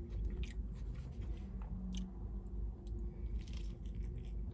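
A person biting into and chewing a soft bulgogi beef taco with lettuce, close to the microphone: scattered faint wet mouth clicks over a low steady hum.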